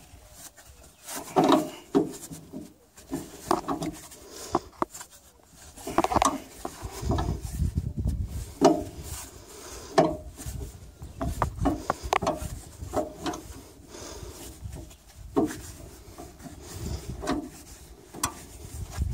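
Irregular metal clanks, knocks and scraping from a plough's hitch linkage being worked and tightened by hand, with short creaks in between.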